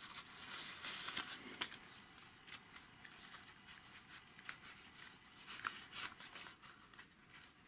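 Faint rustling and crinkling of a small paper needle packet being unfolded by hand, with scattered small ticks.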